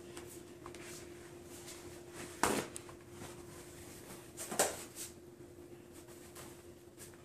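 Two brief clatters about two seconds apart as sandwich bread, cheese slices and a plate are handled on a kitchen counter, over a faint steady hum.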